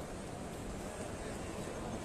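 Shopping-mall background hubbub: a steady wash of distant, indistinct voices and crowd noise in a large open atrium.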